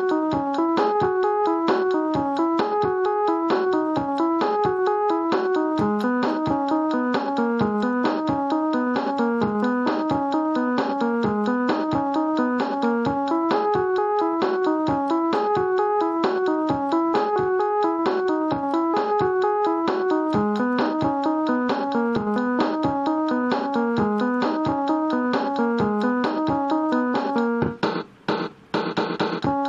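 Casio Tone Bank electronic keyboard playing a 90s Hindi film song melody in a piano tone: an even run of notes over a lower moving line. Near the end the notes break off briefly, with a few noisy bursts, then resume.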